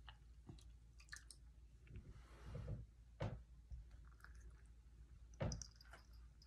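Faint handling sounds: light clicks and a couple of soft knocks, about three seconds in and again near the end, as small items are set down on a counter.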